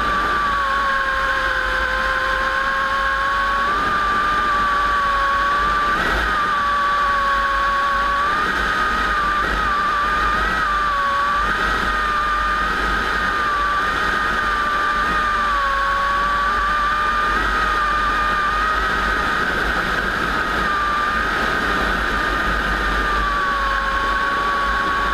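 Vintage warbird piston engines running at a steady speed, with a steady high-pitched whine over the engine noise that wavers only slightly in pitch and never swells or fades.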